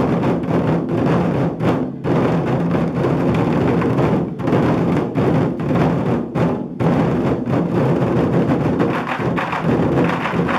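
A 24 Festive Drums ensemble of large Chinese barrel drums beaten with wooden sticks: a dense, fast drumming pattern, broken by short pauses about two, four and six and a half seconds in.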